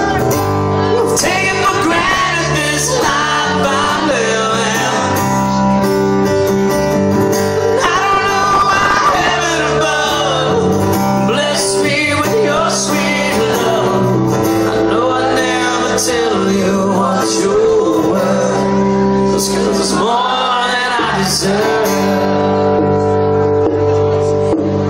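Live country band music with acoustic and electric guitars and some singing, recorded on a cellphone from the crowd.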